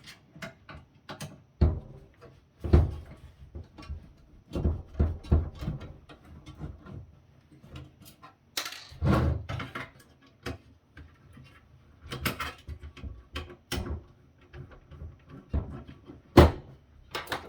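Irregular clicks, taps and knocks of screws being taken out and the steel chassis of a KVM console being handled, with one sharp knock near the end as the loudest.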